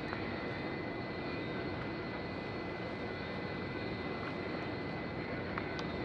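Steady low drone of a ship's engines, with a faint steady high whine above it and a light tap near the end.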